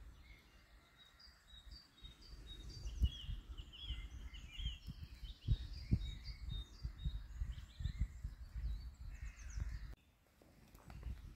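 Woodland birds singing and chirping. From about two seconds in, an uneven low rumble on the microphone, which cuts off suddenly near the end.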